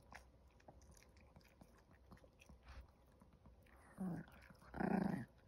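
Chihuahua puppies at a chew stick: faint scattered clicks of gnawing, then two short dog vocal sounds about four and five seconds in, the second louder and longer.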